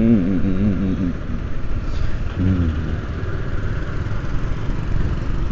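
Motorcycle riding in traffic: the Bajaj Pulsar 150's single-cylinder engine running steadily under wind and road noise, heard from on the bike.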